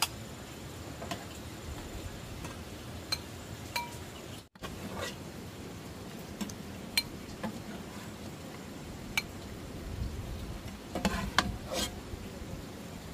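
Metal utensils clinking and scraping against pots or dishes: scattered single clinks, then a quick run of several clinks near the end, over a steady low background.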